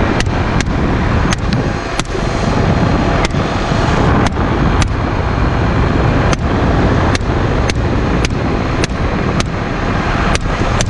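AR-15 rifle fired in rapid semi-automatic shots from a helicopter, about twenty shots at uneven intervals of roughly half a second, over steady helicopter and wind noise.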